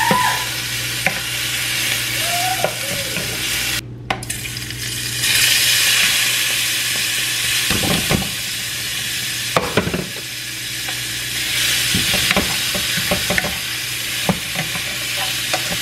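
Food frying and sizzling in a pan while being stirred, the utensil clicking and scraping against the pan now and then. The sound drops out briefly about four seconds in and comes back with louder sizzling.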